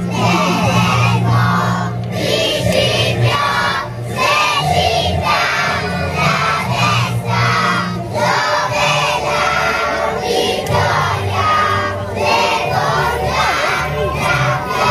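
A group of young children singing and shouting together along to a recorded song with a steady bass line.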